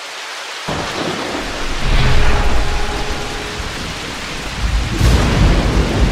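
Sound effect of heavy rain with thunder: a steady rain hiss, with thunder rolling in about a second in, swelling at about two seconds and again near the end.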